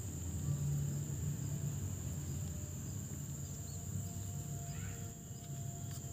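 A cricket's steady high-pitched trill runs throughout over a low rumble, with a short higher call about five seconds in.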